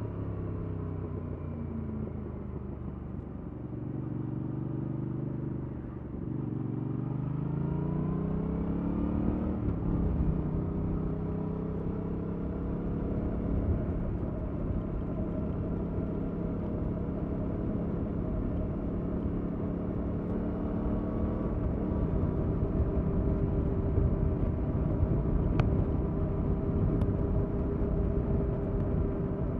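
2021 Yamaha MT-07's 689 cc parallel-twin engine, stock exhaust, under way. It eases off at first, then revs up in a rising pull about six seconds in. It then holds a steady cruise, with a slight drop in pitch about twenty seconds in, like an upshift, over rumbling wind and road noise.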